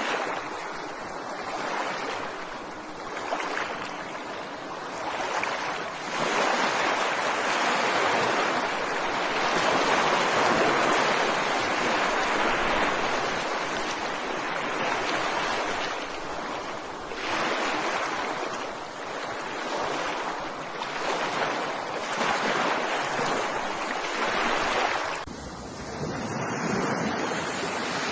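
Ocean waves washing onto a beach, the surf swelling and ebbing in long surges several seconds apart.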